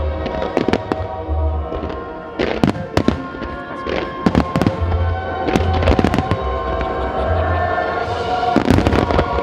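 Fireworks shells bursting in an irregular series of sharp bangs that come thicker from a few seconds in, over music with held tones and a pulsing bass.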